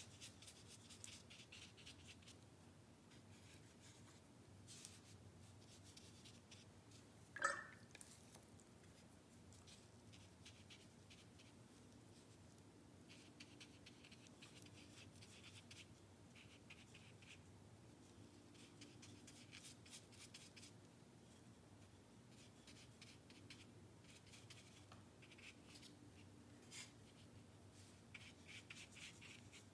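Faint, scratchy strokes of a watercolour brush dabbing on paper, coming in runs of quick little strokes. One brief, much louder sound with a short rise in pitch about seven seconds in.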